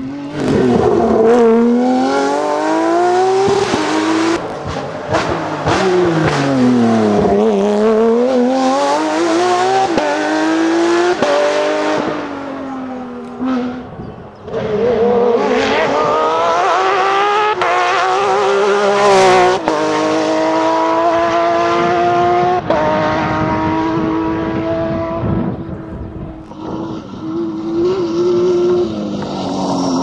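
Porsche 911 rally cars' flat-six engines at full throttle, revving up through the gears with the pitch climbing and dropping at each gearchange, as several cars pass in turn.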